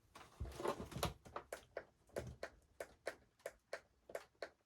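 A short rustle of handling, then a run of sharp clicks, about three to four a second, from a lamp's brightness control being clicked up.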